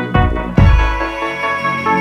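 Background music: steady held melodic notes, with two deep bass hits near the start, about half a second apart.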